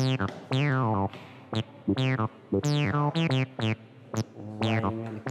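Background music on a synthesizer: a quick run of short notes, each with a bright falling sweep.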